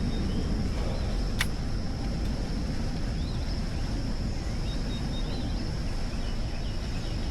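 Outdoor pond-side ambience: a steady low rumble, a constant high-pitched tone, and faint bird chirps, with one sharp click about a second and a half in.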